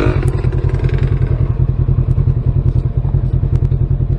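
Engines of a side-by-side UTV and dirt bikes idling together: a steady, low, evenly pulsing engine sound, with a few light clicks.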